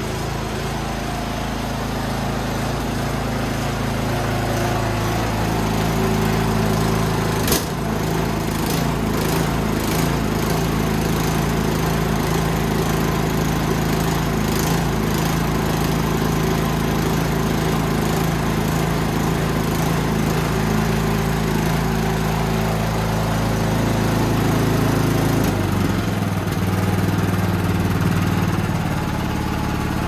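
Toro Power Max 824 OE snowblower's single-cylinder engine running steadily after a carburetor rebuild, newly back from a no-start and running well. A sharp click comes about seven seconds in, and the engine note shifts near the end.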